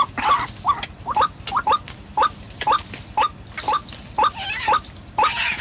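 White-breasted waterhen (ruak-ruak) calling: a fast run of short, rising calls, about three a second.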